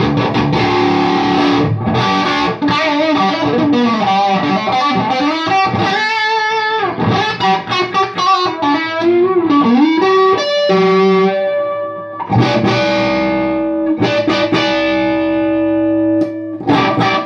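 Overdriven electric guitar through a modded Orange Tiny Terror valve amp: chugging chords, then a single-note lead line with string bends about six seconds in, then held notes and chords left ringing near the end.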